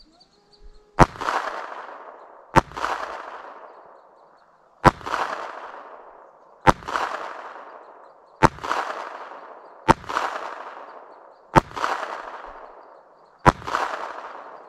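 Eight shots from a .25 ACP pocket pistol, fired at a steady pace about one and a half to two seconds apart. Each sharp report is followed by an echo rolling off over a second or so.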